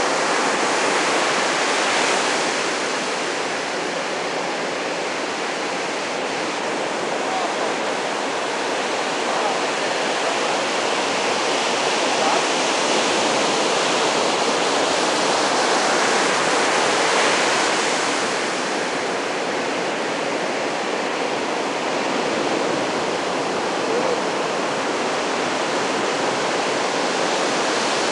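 Ocean surf breaking and washing in, a steady rushing roar that swells twice, once near the start and again a little past the middle.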